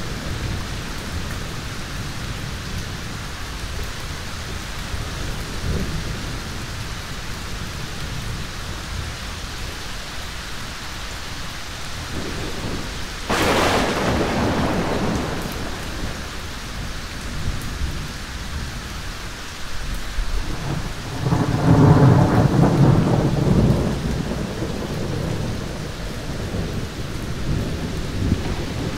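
Thunderstorm with steady rain. A sharp crack of thunder comes about halfway through, and a longer low rumble of thunder follows later, the loudest part.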